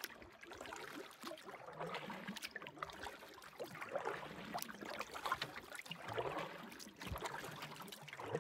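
Canoe being paddled: paddle strokes dipping and pulling through the water with water trickling and lapping along the hull, the splashing swelling about every two seconds.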